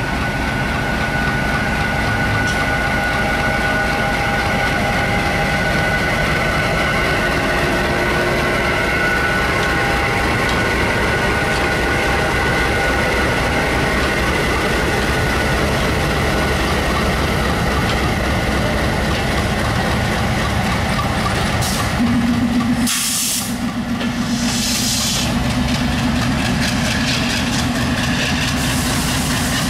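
A WDM-3A diesel-electric locomotive's ALCO 251 16-cylinder engine running hard as it pulls the train away and passes close by, a dense engine sound with steady whining tones. About two-thirds of the way in, a few loud bursts of hiss break over it as the coaches roll past.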